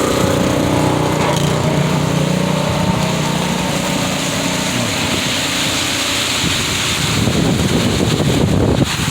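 A small engine running steadily, then gusts of wind buffeting the microphone from about seven seconds in.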